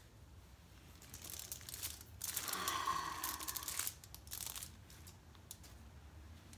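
Adhesive dressing strip being peeled off the skin: a drawn-out ripping rustle starting about a second in and lasting two to three seconds, with a brief rustle after it.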